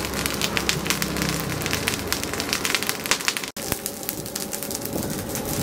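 Coal forge fire crackling with many rapid sharp pops as the burning coals are stirred with an iron rod. Just past halfway the sound breaks off abruptly and gives way to a steadier rushing hiss with fewer pops.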